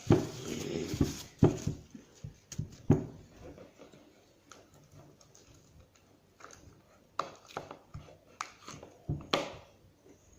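Hands working at slime-making materials: a scraping, rustling noise in the first second or so, then scattered short clicks and taps of containers and tools being handled.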